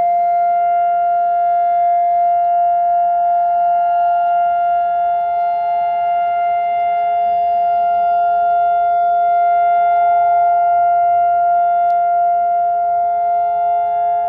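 Israeli civil-defence siren sounding the two-minute memorial signal: one loud, steady tone that neither rises nor falls, with several fainter steady tones above and below it.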